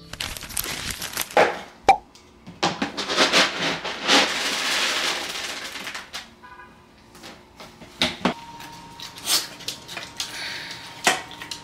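Cardboard box and packaging being opened by hand: rustling and tearing, with a few sharp clicks and knocks and a longer stretch of continuous rustling about three to six seconds in.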